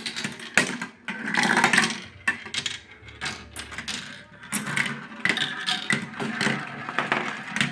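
Marbles rolling and clattering down a marble run, with many sharp clicks as they drop and knock against the track.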